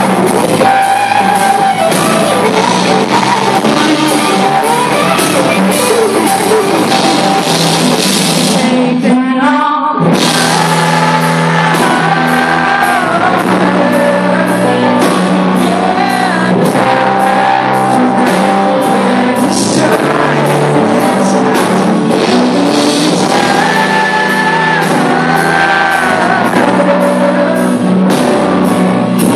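Live band playing loud with electric guitar, drums and keyboard under singing, heard through a phone's microphone in a large hall. The band drops out briefly about nine seconds in, then comes back in.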